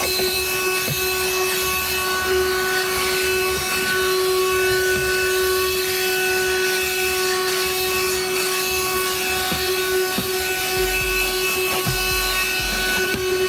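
A 12-volt handheld car vacuum runs steadily with a constant motor whine and rushing air. Its brush attachment scrubs over the car's floor and seat in short scratchy strokes.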